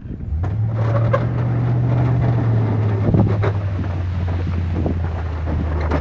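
Duramax V8 turbodiesel of a plow truck running as it drives close past, a steady low engine drone whose pitch drops a little partway through. Wind buffets the microphone.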